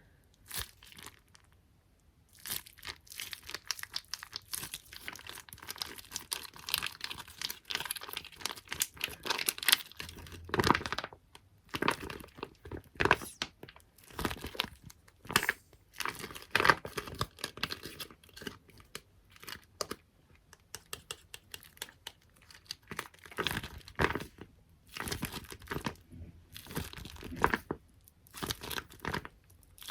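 Close-miked ASMR tapping on small objects: irregular quick taps with sticky, crinkly peeling sounds and short pauses, the longest near the start.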